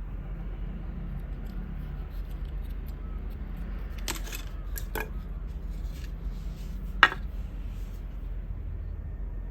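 A few sharp clicks and snips from tools working on a pocket radio being dismantled, over a steady low hum. The loudest click comes about seven seconds in.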